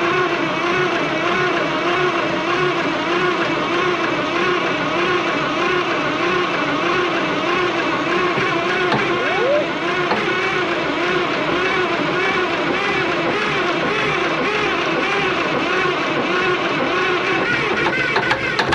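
Starter cranking the Cummins Big Cam IV 400 inline-six diesel of a 1988 Kenworth K100E that has sat unused for nine years. The engine turns over steadily for a long stretch with an even rising-and-falling rhythm and does not catch.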